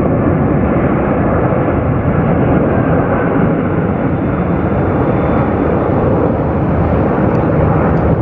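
Airbus A330 jet airliner's engines running loud and steady as it rolls along the runway.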